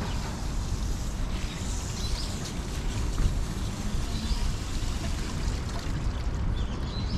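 Outdoor ambience: a steady low rumble and hiss, with a few short high bird chirps scattered through it.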